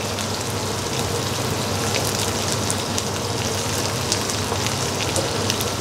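Garlic cloves, ginger slices, coriander stems and whole spices sizzling in hot sesame oil in a stainless steel wok: a steady hiss with scattered crackles, the aromatics frying before the sauce goes in.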